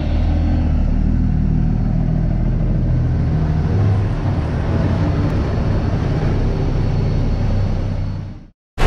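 Kenworth semi-truck's diesel engine rumbling as the loaded rig pulls slowly away past the listener. The sound fades out about eight seconds in.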